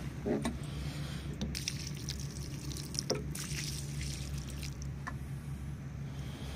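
Water pouring from the spout of a 10-litre watering can onto soft, loose soil, splashing and trickling as it soaks the ground around seedlings. The splashing is heaviest from about a second and a half to four seconds in.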